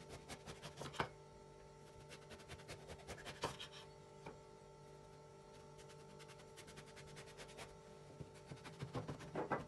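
Kitchen knife slicing an eggplant on a wooden cutting board: faint sawing strokes and light taps of the blade on the board in short runs, with a sharper knock about a second in and another a few seconds later.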